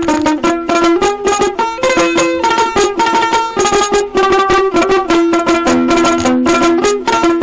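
Instrumental phone ringtone music: a quick, repeating melody of short, sharp notes, several a second, over a held lower note.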